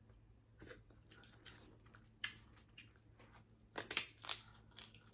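King crab shells being cracked and picked apart by hand: scattered sharp crunches and clicks, with a louder cluster a little under four seconds in.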